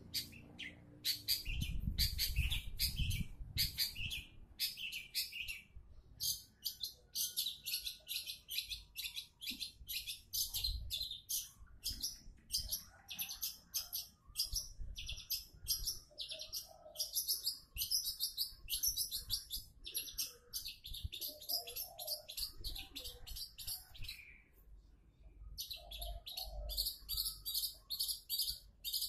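Long-tailed shrike (cendet) singing a fast, scratchy chatter of short high notes, run together almost without a break. There is a brief pause near the end before the song picks up again.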